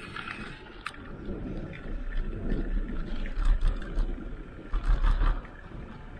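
Wind buffeting the microphone of a moving ride camera, with uneven gusts of low rumble about two seconds in and again around five seconds, over road noise and small rattling clicks.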